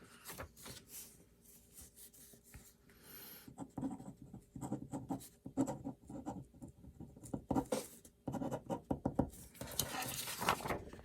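Bastion Slim Bolt Action Pen writing on paper with a Parker-style refill: the tip scratches in short, irregular strokes with brief pauses.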